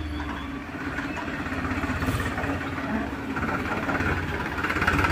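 Powertrac Euro 47 tractor's diesel engine running with a steady, even beat as it pulls a trolley loaded with soil.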